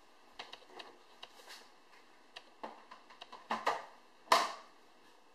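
Plastic lid being fitted and pressed down onto a plastic fermenting bucket: a series of light clicks and knocks, then one loud snap about four seconds in as the lid is pushed home.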